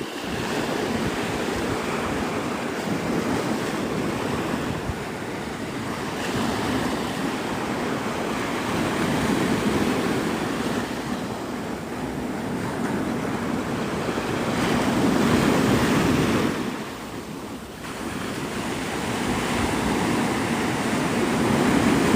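Gulf surf washing onto the beach, swelling and easing about every six seconds, with wind rushing over the microphone.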